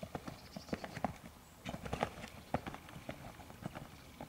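Horse's hooves striking a sand arena at a canter: a quick, uneven run of hoofbeats.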